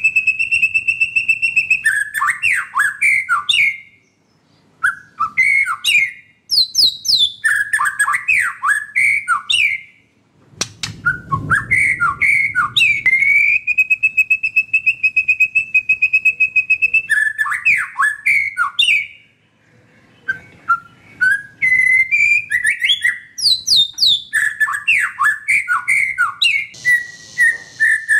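White-rumped shama singing: bouts of rapid, varied whistled notes and trills, two of them opening with a long, steady high whistle. Short pauses of about a second break the song three times.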